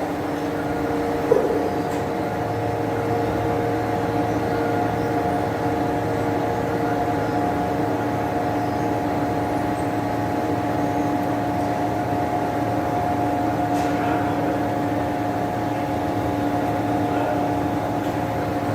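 Slideway grinding machine running with a steady hum of several held tones; a lower drone joins about two seconds in.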